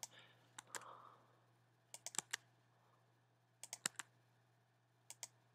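Computer keyboard keys tapped in small clusters of sharp clicks with pauses between, the tab key being pressed to indent paragraphs of text. A faint steady low hum sits underneath.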